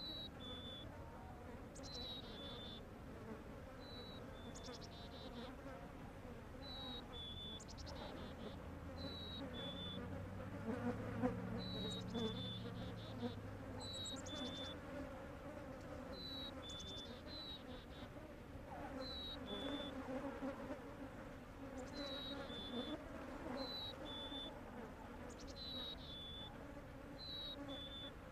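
Flies buzzing, one passing close and louder about eleven seconds in. Behind them, a high two-note chirp repeats every second or two.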